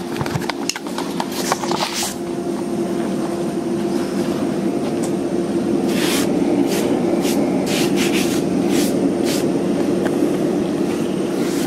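Steady hum of an electric motor running. Near the start there are handling knocks, and from about six to nine seconds in a run of short scraping strokes as a hand brushes over the surfaced end-grain board.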